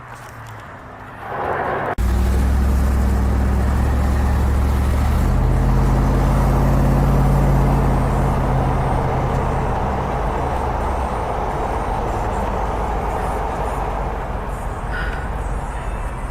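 Car engine and road noise: the rumble comes in abruptly about two seconds in, and the engine note rises as the car speeds up, then settles into steady driving noise.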